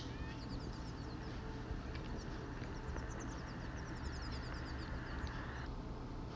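Finch singing: a quick, twittering series of short high chirps that stops near the end, over a faint steady low hum.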